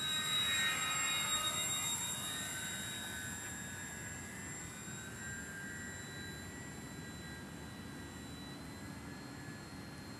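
Electric motor and propeller of an RC parkflyer Monocoupe 90A model airplane whining in flight. It is loudest about a second in as the model passes, the pitch sliding slightly down as it moves away, then it settles into a steadier, quieter whine.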